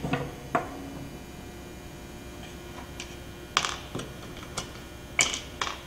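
Scattered light clicks and taps of small metal hardware, screws and aluminium hanging clips, being handled and set down on a wooden panel. There are two clicks at the start, a quiet stretch, then a quicker run of about six clicks in the last few seconds.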